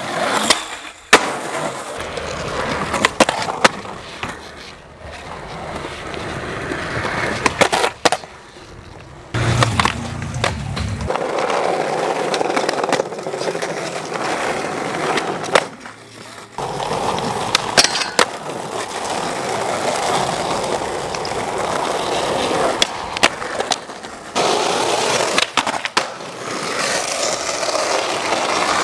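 Skateboard wheels rolling over concrete, with sharp clacks and knocks as the board hits the ground in tricks. The rolling stops and starts abruptly several times as separate takes follow one another.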